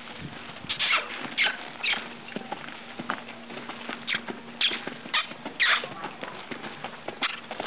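Hooves of a two-year-old horse striking sand footing as it walks and then trots loose around the pen: an irregular run of short, crunchy hoof falls, about two a second.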